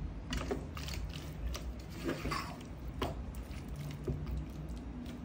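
A utensil knocking and scraping in a frying pan as shrimp are stirred while they sauté, in irregular clicks over a steady low hum.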